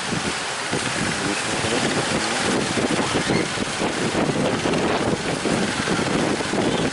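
Strong wind buffeting the microphone over rough, surging sea, a loud steady rush with fluttering gusts.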